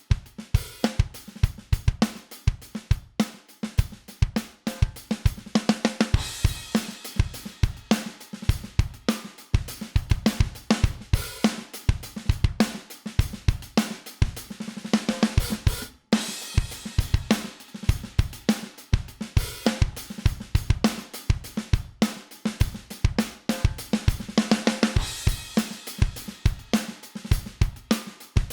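A looping drum kit groove of kick, snare, hi-hat and cymbals, played as a drum bus through vari-mu (variable-mu) tube compressor plugins. The loop restarts once, with a brief gap, about halfway through.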